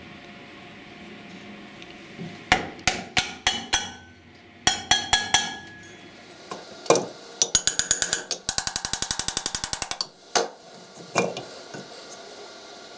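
Metal-on-metal tapping on the end cover of an old electric motor as it is knocked loose from the housing: two groups of sharp knocks, then a fast run of taps that becomes a rapid even rattle for about a second and a half, then two single knocks near the end.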